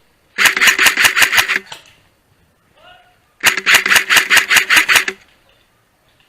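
Airsoft rifle firing two full-auto bursts, each about a second and a half long, with a steady whine running under the rapid clacks.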